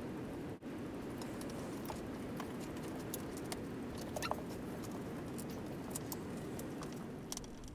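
Scattered light clicks and taps over a steady low hum, from wooden picture-frame mouldings being handled and set together.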